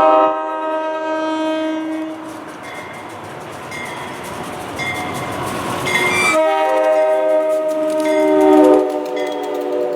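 SEPTA push-pull passenger train sounding its multi-note air horn, a held chord that stops about two seconds in. The rushing noise of the moving train with wheel clicks follows, then the horn sounds again from about six seconds in.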